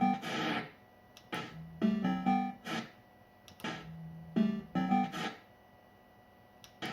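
Bell Fruit Cash Explosion fruit machine playing its electronic sound loop: a short phrase of a few quick bleeping notes and a hissing sweep, repeating about every two and a half seconds, three times over.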